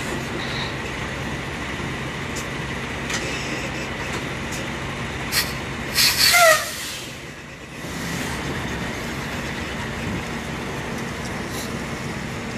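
Semi truck's diesel engine idling, with two short, loud hissing bursts and a brief falling squeal around six seconds in, typical of the air brakes being released. The engine then picks up from about eight seconds in as the tractor-trailer pulls away.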